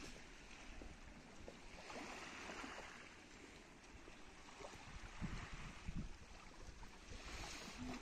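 Faint sea ambience of gentle waves washing, swelling twice, with two low thumps a little past the middle.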